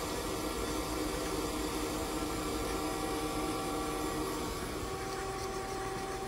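Doosan Lynx 220LSYA CNC lathe running: a steady hum with several whining tones, the lower ones fading out about four and a half seconds in.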